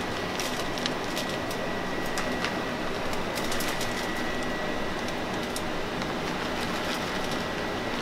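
Steady hiss with a faint constant high whine, and a few light ticks and rustles as shredded cheese is shaken from a plastic bag onto a tortilla.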